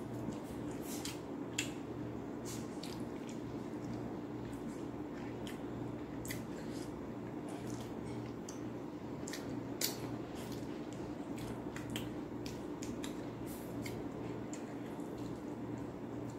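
Eating rice and oily side dishes by hand: scattered small, wet clicks and smacks of chewing and fingers working the food, over a steady low hum.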